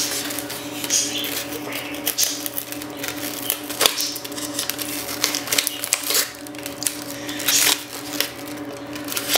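Hands handling a polystyrene foam packing tray and plastic wrap: irregular rustling, scraping and clicking. A steady low hum runs underneath.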